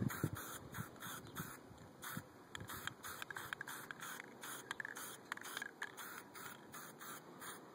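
Aerosol spray paint can hissing in quick short bursts, about five a second, as burnt orange Valspar spray paint goes onto concrete.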